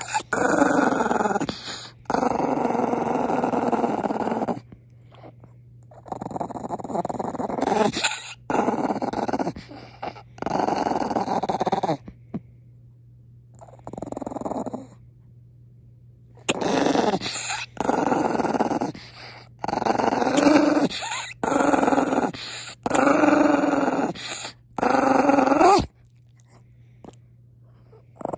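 Maltese dog growling again and again with its teeth bared, annoyed at being kissed. It is a long series of growls, each about one to two seconds long, with short pauses between.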